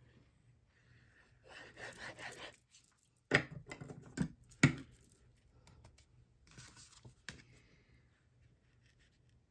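Cardstock being handled on a craft mat: rustling and sliding paper about two seconds in, then three sharp taps between three and five seconds in as card is set down and laid onto the card base, with more rustling and a last tap about seven seconds in.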